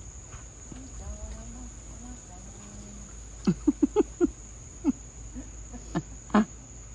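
Crickets chirping as a steady, high, thin trill. About halfway through, a quick run of five short, loud, pitched sounds cuts in over it, and a few more single ones follow near the end.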